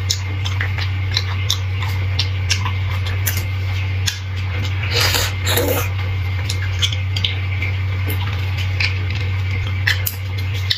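Close-up eating sounds of bone marrow: many small wet mouth clicks and smacks, with a longer slurp about five seconds in as marrow is sucked from the bone. A steady low hum runs underneath.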